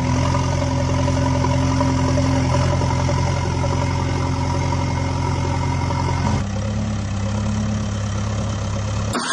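Engine idling sound effect, a steady low diesel-like drone. About six seconds in it switches abruptly to a slightly different idle.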